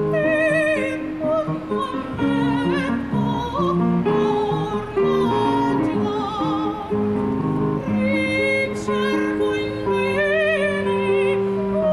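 Female opera singer singing with a wide vibrato over a held instrumental accompaniment.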